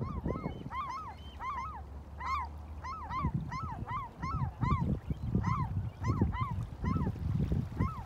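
Waterbirds honking, a steady run of short rising-and-falling calls about two to three a second, over low gusts of wind and water noise.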